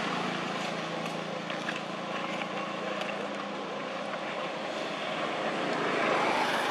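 Steady drone of a distant engine over outdoor background noise, swelling slightly near the end.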